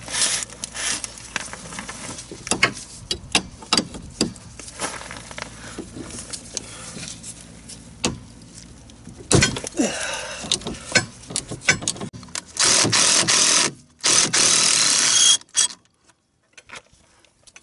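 Socket ratchet clicking as the rusty 14 mm (9/16-inch) rear leaf spring bolt on a golf cart is worked loose. Near the end a cordless power tool runs in two short bursts of about a second each, spinning the bolt out.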